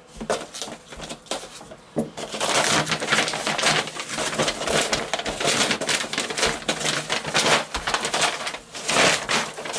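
Brown kraft packing paper and cardboard packaging crinkling and rustling as they are pulled off and handled, a dense crackle that gets louder about two seconds in.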